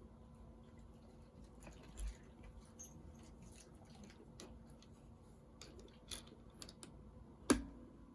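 Plastic Lego pieces being handled and pressed together: scattered light clicks and rattles, with one sharper, louder click near the end.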